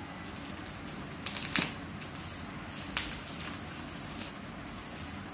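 Plastic bubble wrap rustling and crinkling as it is pulled off a spool by hand, with sharper crackles about one and a half seconds in and again about three seconds in.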